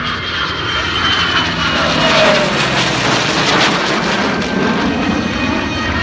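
Loud jet engine noise from an F-22 Raptor flying past, with a tone that drops in pitch as it goes by. The noise is loudest about two seconds in.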